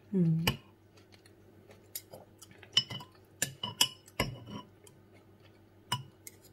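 Metal spoon and fork clinking and scraping against a ceramic soup tureen, about eight sharp separate clinks, some with a short ringing tone. A short voiced hum at the start.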